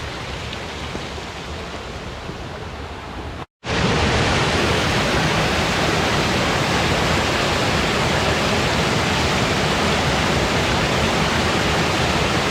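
Steady rush of flowing river water. It cuts out for an instant about three and a half seconds in and comes back louder and closer.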